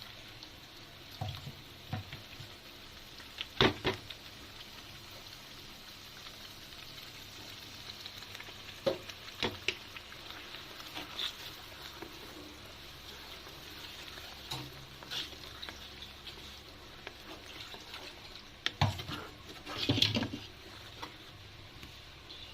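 Ground masala paste for shorva gravy frying in oil in a kadai, with a steady low sizzle, while a spoon stirs it and now and then knocks against the pan. The loudest knocks come about three and a half seconds in and twice near the end.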